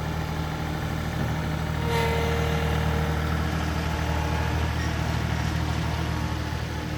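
John Deere 2032R compact tractor's 31 hp diesel engine running steadily. About two seconds in there is a click, a faint whine joins, and it gets slightly louder.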